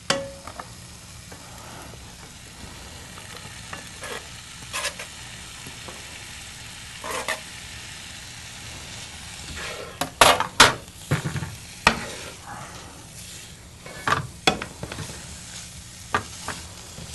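Ground beef sizzling steadily in a nonstick frying pan while chopped onion is tipped in from a plastic cutting board and stirred through with a plastic spatula. Scattered knocks and scrapes of the spatula against the pan, thickest about two-thirds of the way through.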